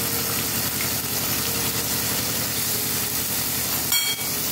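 Bacon sizzling steadily as it fries crisp in a pan, with a brief clink about four seconds in.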